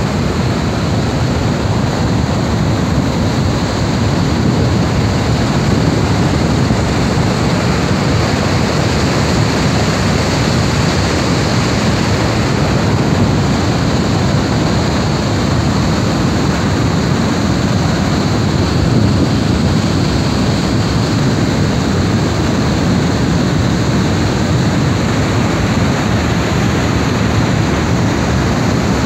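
Niagara Falls roaring: a loud, steady rush of falling water that does not let up, deepest in the low range.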